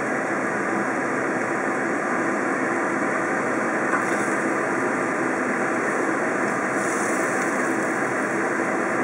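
A steady, even rushing noise from a stovetop stir-fry of rice cakes and vegetables being turned with a wooden spatula, with a couple of faint scrapes in the pan.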